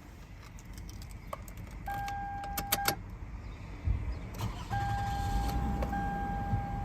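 2004 Toyota Sienna's 3.3-litre V6 being started as a test after a knock sensor replacement: a few clicks, a steady electronic chime from the car, and the engine catching and running.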